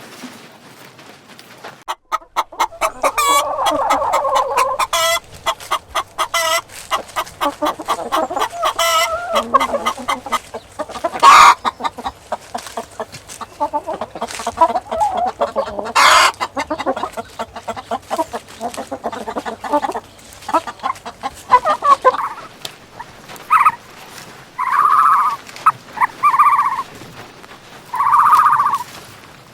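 Chickens clucking, several birds calling over one another. Near the end, the clucking gives way to a few separate short calls, each under a second.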